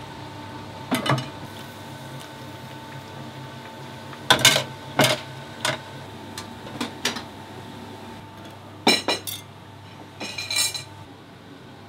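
Dishes and utensils clattering in a restaurant kitchen: a string of knocks and clinks, the loudest about four and nine seconds in, some of them ringing briefly, over a steady hum that stops near the end.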